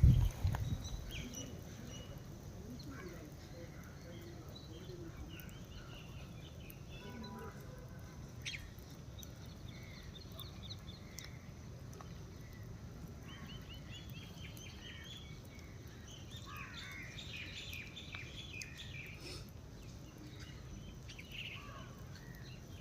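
Parrots chirping and calling on and off, short chirps and quick trills, over a steady outdoor background noise. A low thump on the microphone in the first second is the loudest sound.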